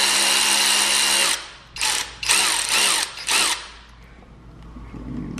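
Cordless power tool spinning a socket on a long extension to back out engine screws. It runs steadily for just over a second, then gives four short trigger pulses and stops about three and a half seconds in.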